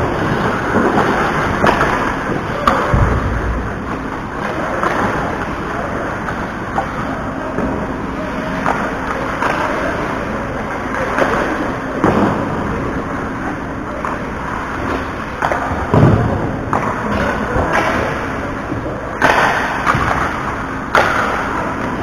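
Ice hockey play: skate blades scraping and carving on the ice, with sticks and puck clacking and repeated sharp knocks. Heavier thumps against the boards come about three seconds in and again about sixteen seconds in.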